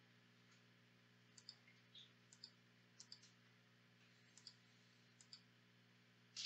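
Faint computer keyboard keystrokes: a dozen or so scattered, irregular clicks, with a louder one at the very end, over a low steady hum.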